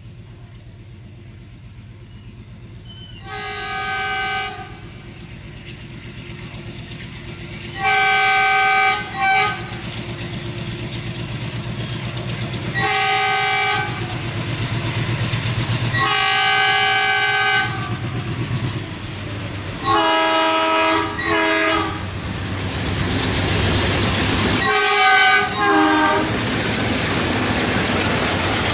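Twin ALCO WDG3A diesel locomotives with 16-cylinder engines chugging hard under a heavy freight load, growing louder as they approach. The horn sounds repeatedly: several long blasts, then bursts of short, broken toots.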